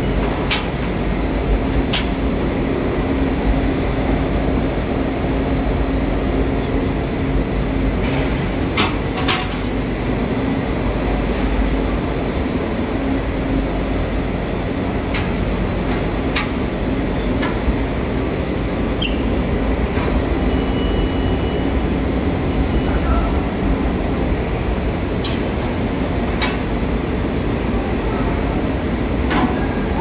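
Rubber profile extrusion and microwave vulcanization production line running: a steady machine drone with a constant hum, and scattered sharp clicks every few seconds.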